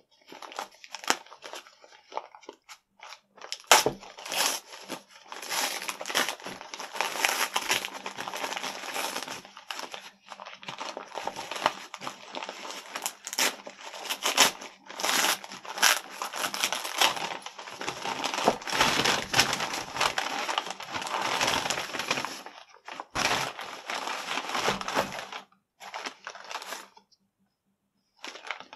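A plastic Priority Mail mailer bag crinkling and rustling as it is handled and dug into, with a few sharp knocks mixed in. The crinkling stops a few seconds before the end.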